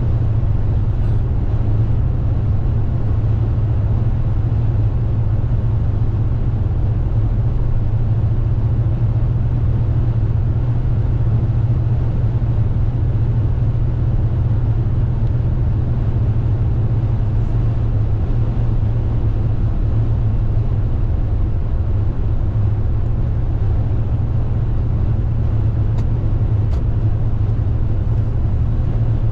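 Steady low drone of a car driving along a highway, heard from inside the cabin: engine and tyre noise with no change in pace.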